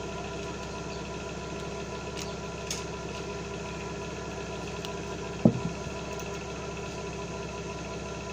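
Steady machine hum throughout, with a few faint clicks and a single short knock about five and a half seconds in.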